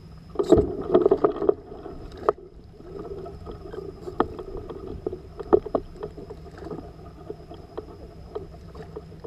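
Scattered knocks and clicks of fishing gear against a plastic sit-on-top kayak hull as a rod is handled, busiest in the first second and a half, over a faint steady high whine.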